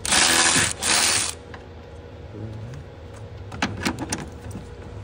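Two short hissing blasts of compressed air, about half a second each, clearing dirt and leaves from around the strut-tower nuts, followed by a few light metallic clicks and knocks.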